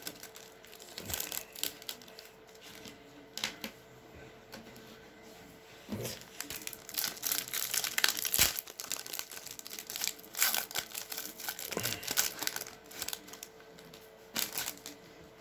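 A trading-card pack wrapper being torn open and crinkled by hand, in irregular bursts of crackling, heaviest in the middle of the stretch.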